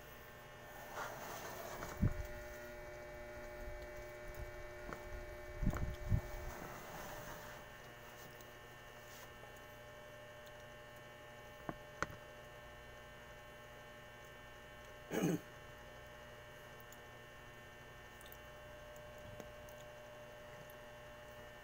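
Steady electrical hum, with the handling noise of a meal eaten by hand over the first seven seconds or so: knocks on the plate and food being scooped. There are a couple of sharp clicks about twelve seconds in and a short, louder noise about fifteen seconds in.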